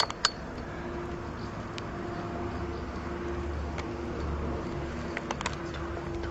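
A few light metallic clicks from an Allen key and the scooter's handlebar clamp being aligned and tightened, over a steady low background rumble with a faint hum.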